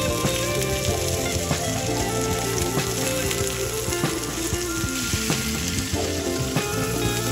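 Sliced red onion and green bell pepper sizzling and crackling in hot oil in a nonstick pan as they are stir-fried, with background music underneath.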